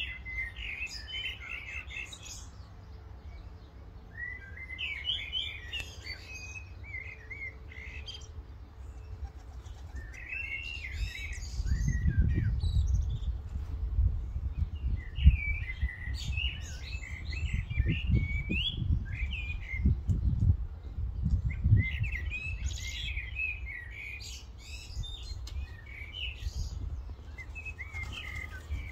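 A small songbird singing short phrases of quick high chirps, repeated about every five seconds. Through the middle, a louder low rumble of wind gusting on the microphone.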